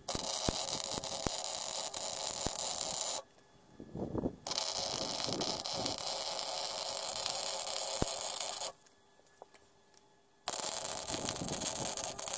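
Electric arc welding on steel: a steady crackling sizzle in three runs of three to four seconds each, with short pauses between.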